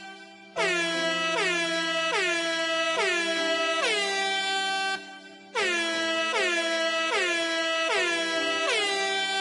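Looped air-horn sound effect over music: pitched blasts roughly every three quarters of a second, each sliding down in pitch and then holding. The loop breaks off briefly at the start and again about five seconds in, then starts over.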